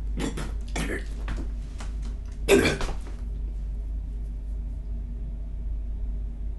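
A man's short breathy vocal sounds, cough- or grunt-like, in the first three seconds, the loudest about two and a half seconds in, then only a low steady hum of room tone.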